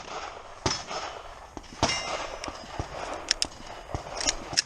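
Scattered sharp cracks and metallic clangs, six or so spread over a few seconds, some with a short ringing tail: gunshots and hits on steel targets on a pistol range.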